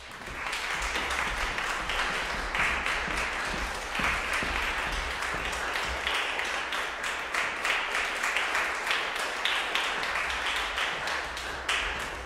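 Concert audience applauding, a dense patter of many hands clapping that tails off near the end.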